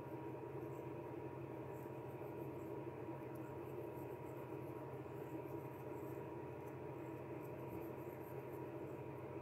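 Felt-tip marker scribbling on a tile, faint, over a steady background hum.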